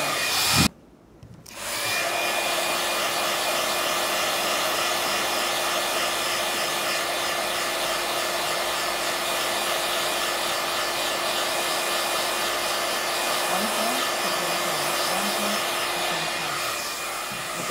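iTeraCare handheld wand's fan blowing warm air, a steady whir with a constant hum. It cuts off sharply about a second in and spins back up a second later.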